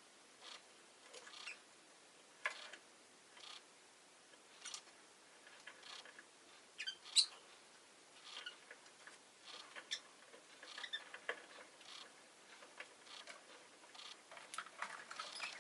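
Rosy-faced lovebird making scattered soft clicks and short chirps, with one louder brief squeak about seven seconds in.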